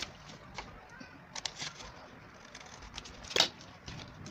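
Paper and small craft tools handled on a tabletop: scattered light taps and rustles, with one sharper knock about three and a half seconds in.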